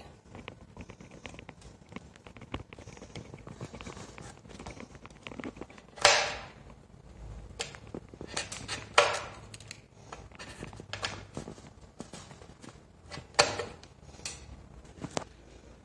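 Cutter snipping through a 220 V LED strip light: three sharp crunches a few seconds apart, amid softer clicks and handling rustle.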